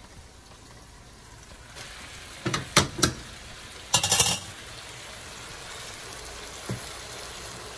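Frying pan of saltfish, onions and sweet peppers sizzling as boiled ackee goes in, the sizzle building about two seconds in. A few sharp knocks and clatters come from the pan about two and a half to four seconds in.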